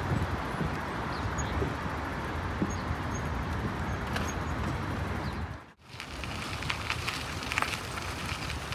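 Outdoor city ambience: a steady rumble of distant traffic with wind on the microphone. It drops out abruptly about two-thirds of the way through, then resumes with scattered light clicks and scuffs.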